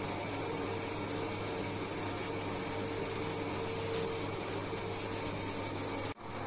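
Steady background hum and hiss of a running machine, with a faint steady tone; it cuts out for an instant near the end.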